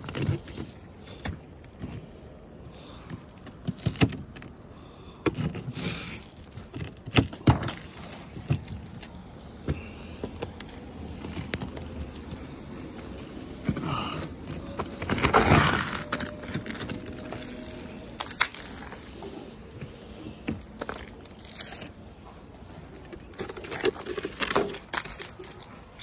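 Thick ice on a car's windshield and wiper cowl being cracked and pulled off by hand. Chunks snap, crackle and clink against the glass and wiper, with irregular sharp cracks and a longer, louder crunch a little past halfway.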